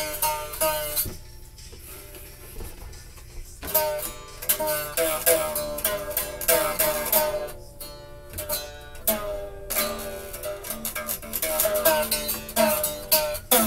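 Acoustic guitar played as single plucked notes, each with a sharp attack that rings and fades. There is a short quieter pause about a second in, then the notes start again.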